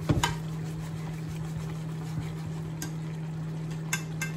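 Chicken stewing in cider in a stainless sauté pan, a steady bubbling simmer over a constant low hum. A few light clicks of a spoon against the pan come just after the start and near the end.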